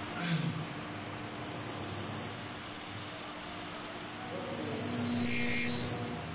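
Microphone feedback from a PA system: a steady high-pitched whistle that swells twice, the second time much louder around five seconds in, then cuts off.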